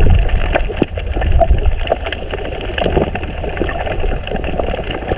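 Underwater sound: a steady low rumble of moving water with scattered crackles and clicks throughout.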